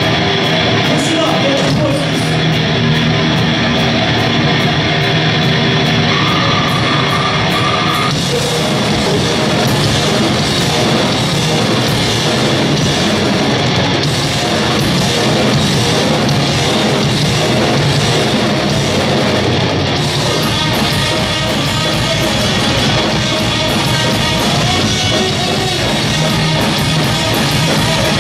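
Live heavy metal band playing loud, distorted electric guitars over a drum kit. Held guitar chords ring for the first several seconds, then the whole band comes in hard about eight seconds in and keeps going.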